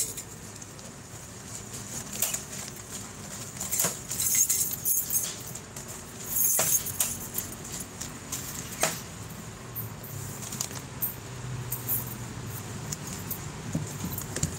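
Plastic packaging and a shopping bag rustling as they are handled, with a few sharp clicks and knocks from items being moved, over a low steady hum.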